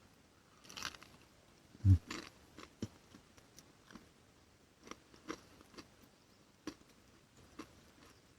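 Food being chewed: scattered soft crunches and small clicks of eating, with one brief low thump about two seconds in.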